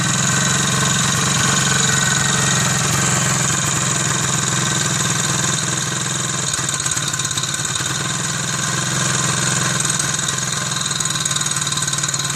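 Izh Planeta 3 motorcycle's single-cylinder two-stroke engine idling steadily just after starting, making the strange noise the owner posted it to show.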